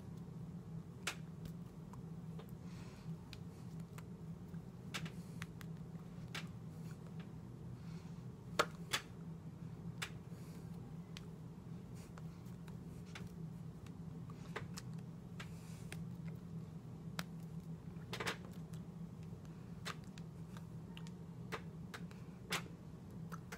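Irregular light clicks and slaps of hands striking and brushing each other as a person signs, a few sharper than the rest, over a steady low hum.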